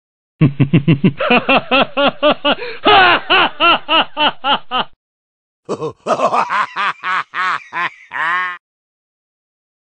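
Two bursts of laughter one after the other: a rhythmic laugh of about four pulses a second lasting some four and a half seconds, then after a short pause a second, differently recorded laugh lasting about three seconds.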